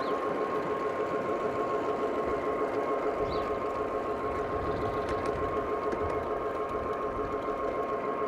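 Battery-electric 3½-inch gauge model diesel locomotive running: a steady electric whine over a low hum from its geared drive motors.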